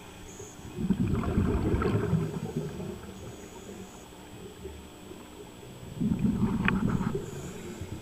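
Scuba diver's exhaled breath bubbling out through a regulator underwater. There are two bubbling bursts, about a second in and again near the end, each lasting over a second, with quiet between as the diver breathes in.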